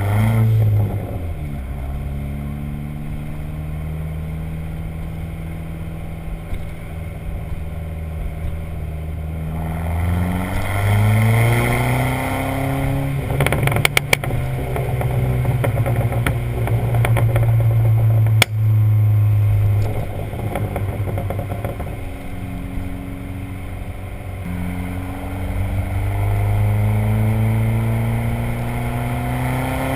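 Dodge Neon SRT-4's turbocharged 2.4-litre four-cylinder running, its revs rising, holding and dropping several times. About halfway through there is a quick run of exhaust crackles, and a few seconds later a single sharp pop as the revs fall. These are exhaust crackles from a Stage 1 tune on the stock exhaust.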